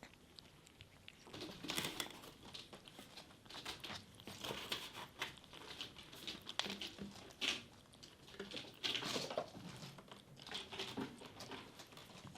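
Bengal kitten chewing and crunching dry kibble from a bowl, in irregular short bursts of crunching every second or so.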